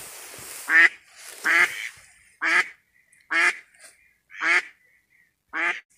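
Live decoy duck quacking: a series of six loud quacks about a second apart, the first the loudest and the rest slightly weaker, the kind of calling that draws passing wild ducks in.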